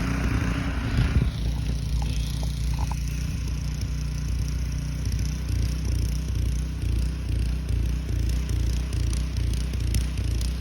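A motor running steadily with a low hum, pulsing evenly from about halfway through.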